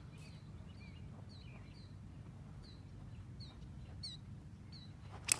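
Small birds chirping in short, repeated calls. Near the end comes a single sharp crack: a 3D-printed PLA bat hitting a wiffle ball, the hit on which the bat's joints give way.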